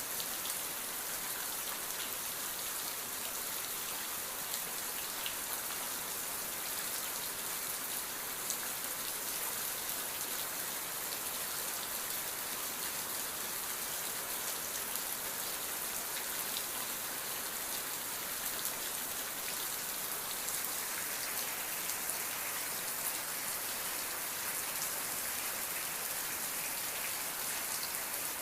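Steady rain falling on a surface, an even hiss with faint scattered drop ticks.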